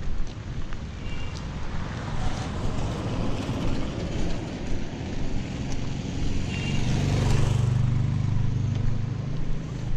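Road traffic passing on a paved street: a car goes by, then a vehicle engine passes close, its low drone loudest about seven to eight seconds in before fading.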